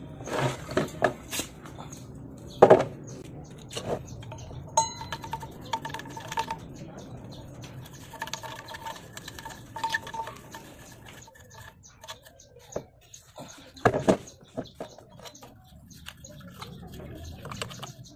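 Scattered metallic clinks and knocks as a scooter's front wheel and loose parts are handled and set down on a concrete floor, with two louder knocks about three seconds in and near fourteen seconds.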